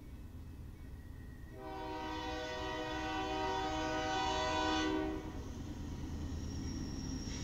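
Locomotive air horn sounding one long chord of several tones, starting about a second and a half in and cutting off a little over three seconds later, over the low rumble of the approaching train.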